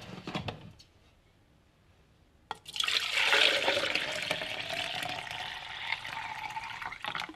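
Fermented kombucha tea poured in a steady splashing stream from a glass jar into a plastic pitcher for about four and a half seconds. The pour begins about two and a half seconds in, after a short silence, and a faint tone rises as the pitcher fills.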